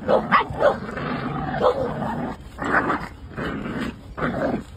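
Puppies play-fighting, giving short growls and yaps in a string of rough bursts.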